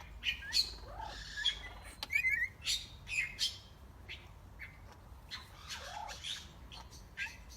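Hawk-headed parrots giving short squawks and chirps in irregular bursts, with a quick run of rising chirps about two seconds in.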